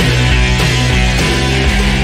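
Loud background rock music with a steady beat.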